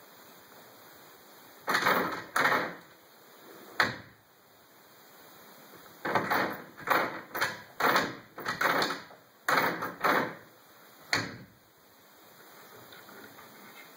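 Closed wooden interior door rattling in its frame and at its knob and latch: short sharp rattles in irregular bursts, two near the start, one on its own, then a quick run of about nine, and a last one.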